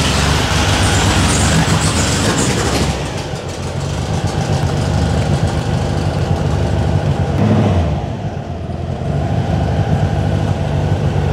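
Turbocharged air-cooled VW Beetle engine running as the car drives out and away, fuller in the first three seconds and duller after that. It swells briefly about seven and a half seconds in.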